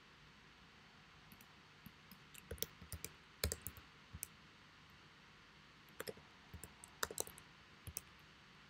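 Keystrokes on a computer keyboard: two short runs of typing, one about two seconds in and one about six seconds in, as a word is backspaced and retyped.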